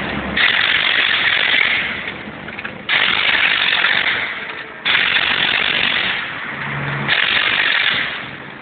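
Pneumatic impact wrench hammering on a car wheel's lug nuts in four runs, each starting suddenly and dying away over a second or two.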